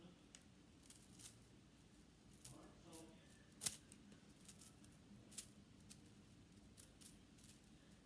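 Small plastic fidget toys being handled: faint, irregular clicks and taps, with one sharper click about halfway through.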